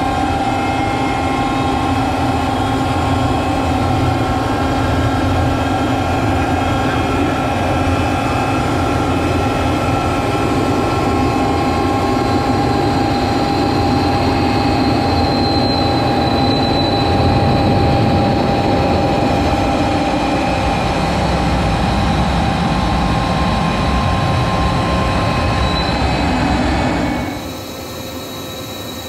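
Jet engine whine and rushing air heard inside a jet's cockpit: a steady rumble with several steady high tones held over it. About 27 seconds in it drops suddenly to a quieter steady noise.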